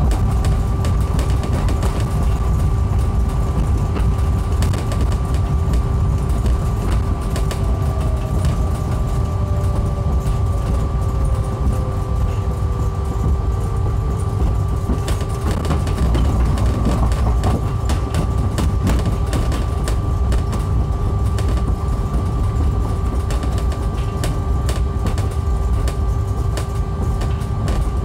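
Heathrow pod, a small driverless electric car on rubber tyres, running along its elevated guideway, heard from inside the cabin: a steady low rumble with two steady whining tones and many small clicks and rattles. A fainter whine slides down in pitch a few seconds in.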